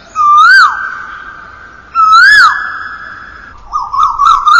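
Electronic emergency siren: a steady tone that swoops up and drops sharply twice, then near the end switches to a fast warbling yelp.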